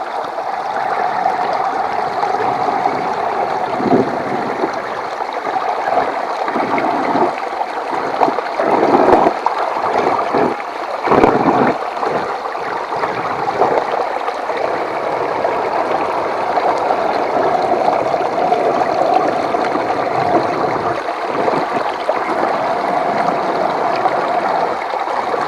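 Water churning and gurgling steadily as a 1:10 Axial SCX10 II RC crawler wades through a pond, with a few sudden louder splashes in the middle, the loudest about eleven seconds in.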